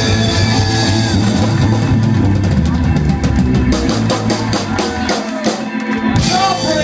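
Live rock band playing, with the drum kit loud, ending a song with a run of rapid drum hits from about halfway through; the bass drops out near the end.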